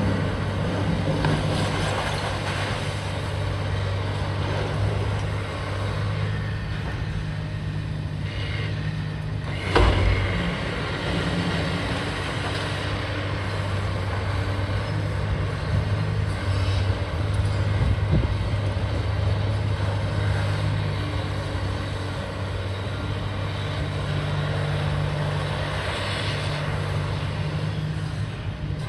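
A heavy engine running steadily, its low drone swelling and easing, with one loud sharp knock about ten seconds in.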